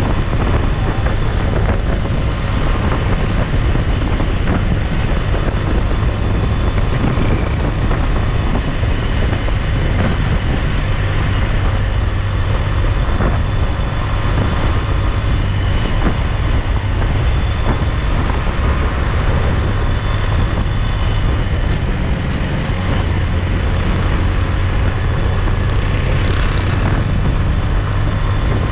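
Steady noise of riding a bike along a busy highway among motorcycles and trucks: a constant low hum under wind buffeting the microphone.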